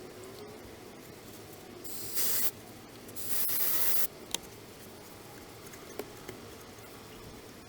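Two short bursts of hissing spray, the first about two seconds in and the second, about a second long, just after it, with a few faint clicks around them.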